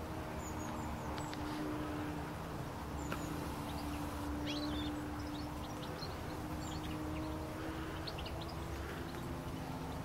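Small birds giving short high chirps over soft background music with long held notes.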